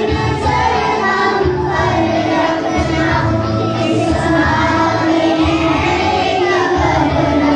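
A group of schoolchildren singing together.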